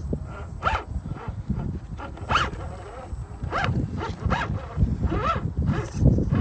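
Electric motor of an RC rock crawler whining in short throttle bursts, its pitch rising and falling with each burst, over low crunching and rumbling from the chassis on rock.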